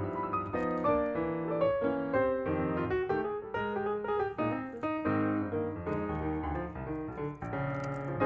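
Background piano music, a run of notes one after another.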